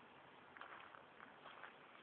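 Faint footsteps on a leaf-strewn gravel path: a few soft, irregular steps over a low hiss.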